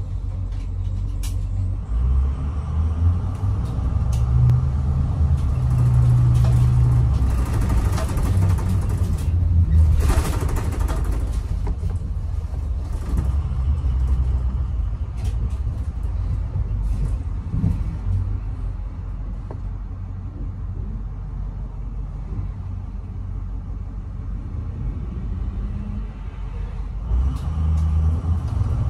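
Navistar VT365 V8 turbo-diesel of an IC CE200 school bus running under way on freshly replaced injectors, heard inside the bus cabin with road rumble. The engine note grows fuller about two seconds in and stays strong until around twelve seconds, eases off, then builds again near the end, with a brief hiss around ten seconds in.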